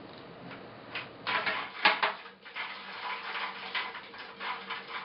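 Window fittings being handled: an irregular run of rattling clicks, clatters and scrapes that starts about a second in, is loudest just before two seconds in, and carries on unevenly.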